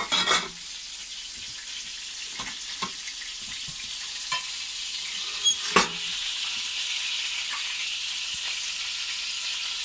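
Breaded cachopo frying in hot oil in a stainless steel pan: a steady sizzle. Loud metal clanks at the start as the pan lid is lifted off, and again about five and a half seconds in as the slotted spatula knocks against the pan.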